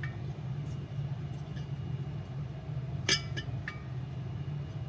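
Metal diesel-heater parts being handled during reassembly: one sharp clink about three seconds in, then a lighter click, over a steady low hum.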